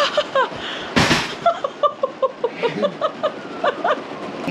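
Excited laughter in a quick run of short ha-ha's, after a single short bang about a second in.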